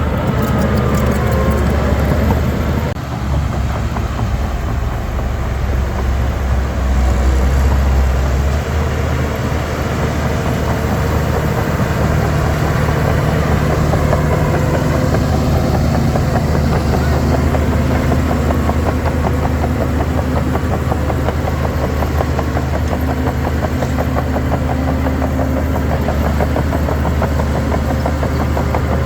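Diesel engine of heavy earthmoving machinery running steadily under work, a little louder about seven seconds in.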